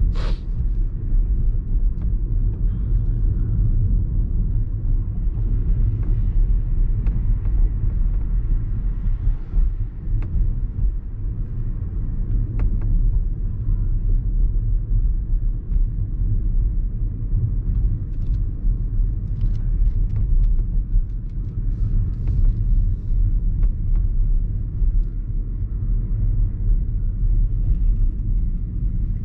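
A 2021 BMW 118i with a 1.5-litre three-cylinder turbo engine, driving in town: a steady low drone of engine and road noise. A single sharp click comes right at the start.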